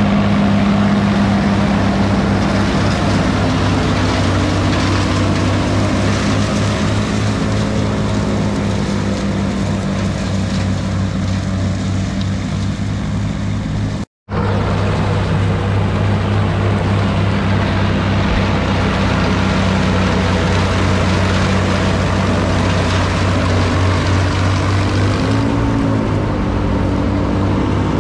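A Farmall 560 tractor's gasoline six-cylinder engine runs steadily under load while it powers a Gehl 400 forage chopper cutting corn stalks. Over the engine hum there is a steady rushing noise. The sound cuts out for a moment about halfway through.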